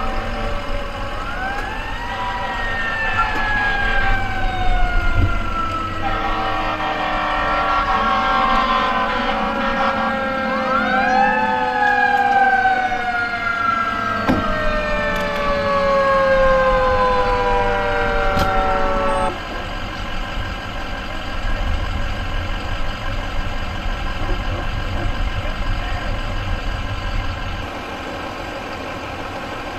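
Fire truck siren winding up several times, each time rising quickly and then falling away slowly. It cuts off sharply about two-thirds of the way through, leaving a low engine rumble.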